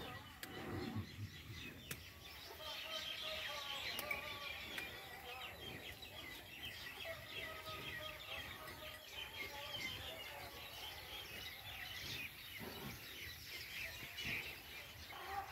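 Faint, continuous chirping of many small birds over a low outdoor background hiss.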